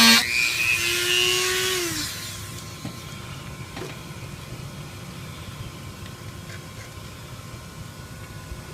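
Dremel rotary tool with a cutting bit, its motor tone running for about the first two seconds, then stopping. After that only a low background with a few faint clicks.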